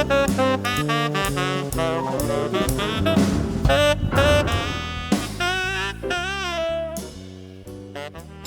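Background jazz music: a saxophone melody over bass and drums, growing quieter near the end.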